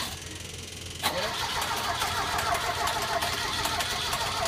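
1976 Lancia Scorpion's Fiat twin-cam four-cylinder engine being cranked over by its starter motor after six years of sitting. A sharp click about a second in as the starter engages, then a fast, even, rhythmic churn of cranking.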